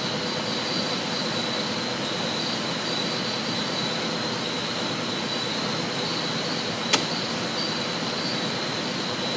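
Steady background whir with a faint high whine, and a single sharp click about seven seconds in.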